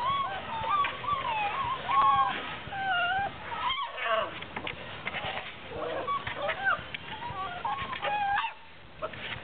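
Six-week-old Presa Canario puppies whining and squealing, many short high wavering cries overlapping, over the scrabbling of paws in wood shavings.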